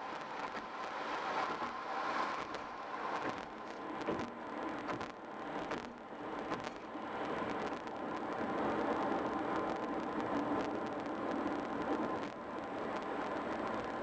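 Steady road noise from a car driving at highway speed: tyres on pavement and wind, with a few light knocks about four to seven seconds in and a faint, steady high-pitched whine.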